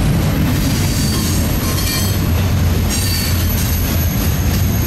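CSX freight train's cars rolling slowly past, a steady rumble of steel wheels on rail, with a few faint high-pitched wheel squeals.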